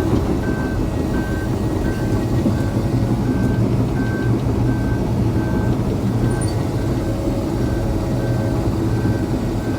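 John Deere 750L crawler dozer's diesel engine running under load while its backup alarm beeps steadily, about one and a half beeps a second, as the dozer reverses.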